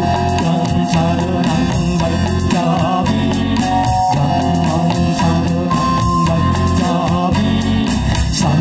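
Music: a song with singing over guitar and a drum kit beat.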